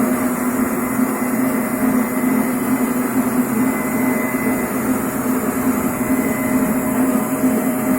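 Band sawmill running steadily at full speed, a loud even machine hum with a steady whine over it.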